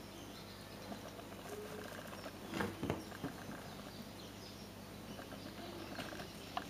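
Rustling and crackling of artificial Christmas tree branches and tinsel as a kitten climbs and grabs through them, louder for a moment about two and a half seconds in, with a sharp click near the end. A faint steady hum runs underneath.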